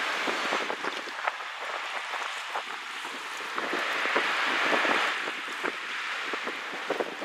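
Wind buffeting the microphone over choppy water, with small waves splashing and slapping throughout; the wind swells about four seconds in, then eases.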